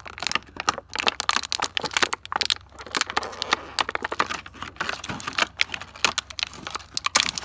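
Clear plastic toy packaging crinkling and crackling as fingers pick and peel it open by hand: a dense, irregular run of sharp crackles.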